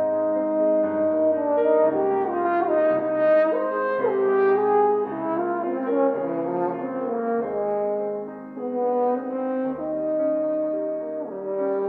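French horn playing a slow, lyrical melody in long held notes over a grand piano accompaniment reproduced by a Steinway Spirio|r reperformance piano.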